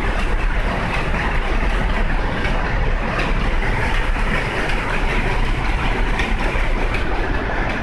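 Power looms running: a loud, steady, dense mechanical clatter.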